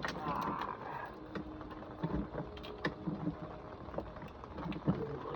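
Scattered clicks and knocks of metal parts being handled and fitted into place while reinstalling a car's onboard charger assembly.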